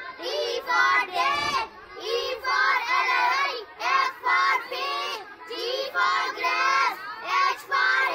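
A group of young girls chanting fruit names together in a sing-song rhythm, in short, evenly paced phrases.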